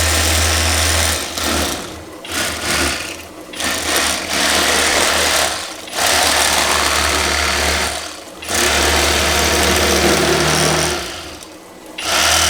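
Bubba Pro Series brushless electric fillet knife running in about five bursts of two to three seconds each, with short pauses between them, its reciprocating blades buzzing as they cut through a walleye.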